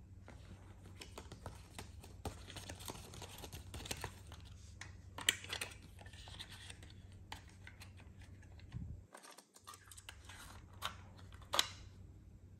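A cassette's folded paper J-card insert and its clear plastic case being handled: paper rustling and light plastic clicks, with a sharper click about five seconds in and a sharp snap near the end as the case is shut.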